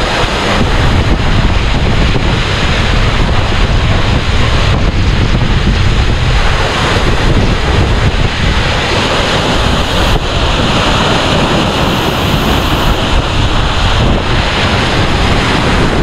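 A powerful waterfall roaring: a loud, steady rush of heavily falling water, with wind buffeting the microphone.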